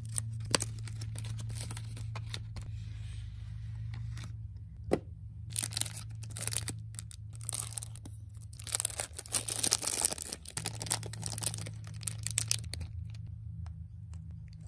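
Packaging being opened by hand: a cardboard chocolate-bar sleeve is pulled open with a few light clicks, then the bar's thin compostable plant-based film wrapper is torn and crinkled open, loudest in the middle.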